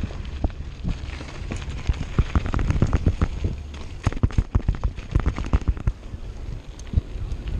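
Downhill mountain bike jolting over a rough dirt trail, with rapid irregular rattling and knocking from the bike and tyres, densest in the middle, over a steady low rumble.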